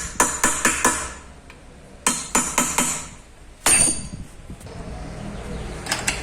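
Sharp metallic clinks of hand tools on metal during tightening on a starter motor install. There is a quick run of about five in the first second, four more between two and three seconds, and one loud ringing clink near four seconds. A low steady hum comes in after about five seconds.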